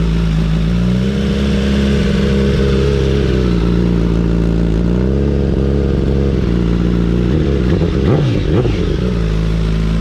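2021 Suzuki GSX-R1000's inline-four engine running through a carbon-fibre slip-on exhaust, just started after a rebuild, with its new motor still being broken in. It idles, rises and holds a higher rpm twice, then gives a quick rev up and back down about eight seconds in.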